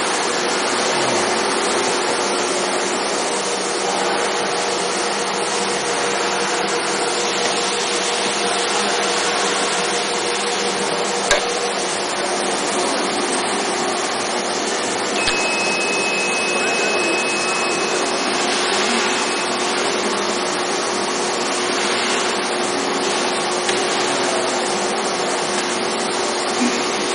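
Equiptop surface grinder running with a steady mechanical hum and whir. There is a sharp click about eleven seconds in, and a steady high beep lasts about four seconds starting about fifteen seconds in.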